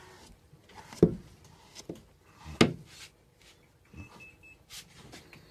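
Several sharp knocks and bumps, likely from handling against the wooden shelf and cage during cat grooming, the two loudest about a second and a half apart. A brief high beep comes about four seconds in.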